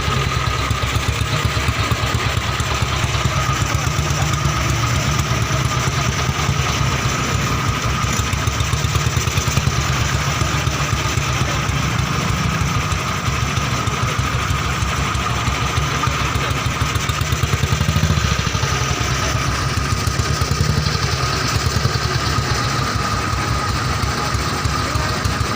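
BSA 350cc single-cylinder motorcycle engine idling steadily, briefly a little louder about eighteen seconds in.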